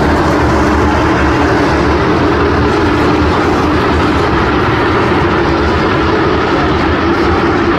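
A field of stock cars running laps on the oval, many engines blending into one steady, loud noise.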